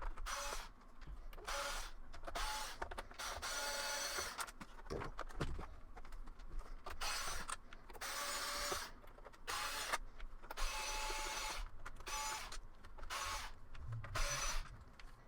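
A small electric screwdriver running in repeated short bursts of about half a second to a second each, backing out a row of screws one after another.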